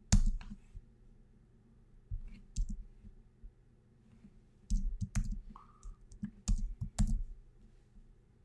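Computer keyboard keystrokes and clicks in a few short scattered bursts, as text is deleted and retyped.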